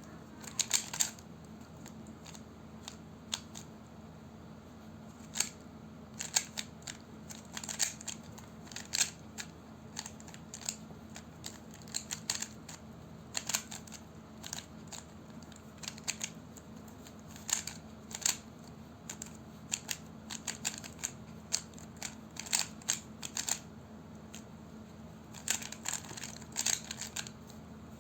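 Rubik's cube being speed-solved: its plastic layers turning in quick, irregular runs of sharp clicks, with short pauses between the runs.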